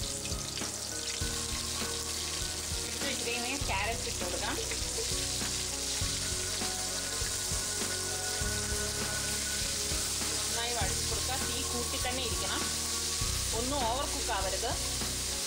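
Thin carrot strips frying with a steady sizzle in a nonstick pot, stirred now and then with a spatula.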